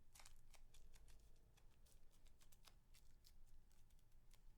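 Close-miked sounds from a spicy mango lollipop: soft, irregular clicks and crackles, several to the second.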